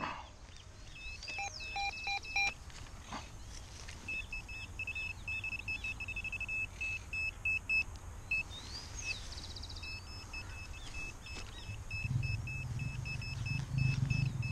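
Metal-detecting pinpointer beeping in short, irregular high-pitched pulses, at times running on into a longer tone, as it is worked over buried metal in the soil (a bottle cap).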